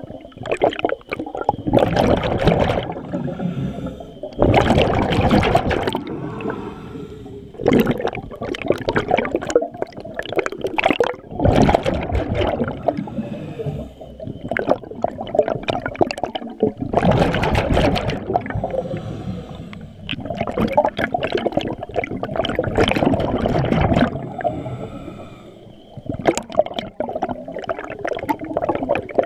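A scuba diver breathing through a regulator underwater: bursts of exhaled bubbles gurgle out every few seconds, with softer stretches between breaths.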